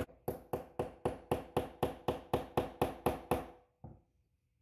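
Small hammer tapping a steel pin into a Desert Eagle bolt in a steady series of ringing strikes, about four a second, ending with one lighter tap: the ejector retaining pin being started partway into its channel.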